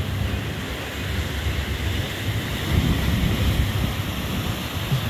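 Rough sea waves surging and breaking over the rocks at the foot of a sea wall, a steady wash of surf with a louder surge about three seconds in.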